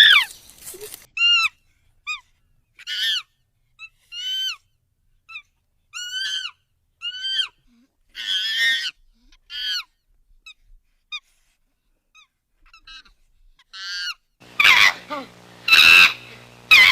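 Chimpanzee calls: a run of short, high calls, each rising then falling in pitch, with gaps of silence between them. About 14 seconds in, much louder, harsher screams start in quick succession over a low hum.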